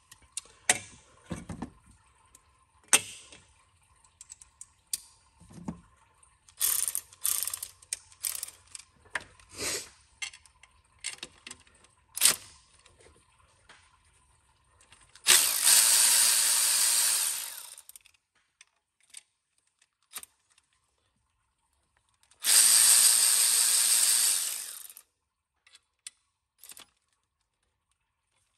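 Hand ratchet clicking in short runs as 10 mm nuts on a glow plug module are worked loose. Then a power tool runs twice, about two and a half seconds each time.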